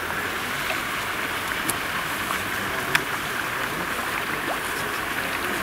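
Lake water sloshing and splashing softly around a wading angler and a hooked sturgeon being drawn in at the bank: a steady watery hiss with a couple of faint clicks.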